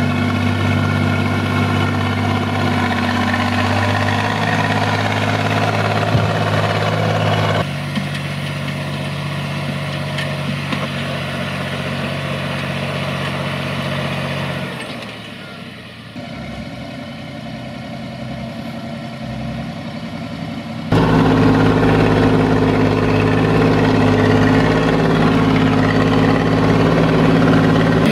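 SAME Laser 110 tractor's air-cooled diesel engine running steadily, its sound changing abruptly several times as the shots change, louder and deeper for the last seven seconds or so.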